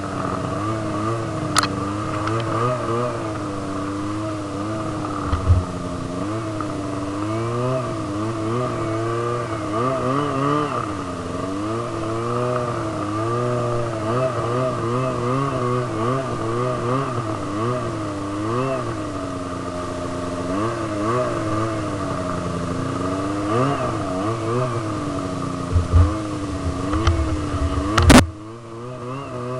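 Snowmobile engine running under a varying throttle, its pitch rising and falling again and again, with a steady higher whine over it. A few sharp knocks break in, the loudest near the end, after which the sound drops off.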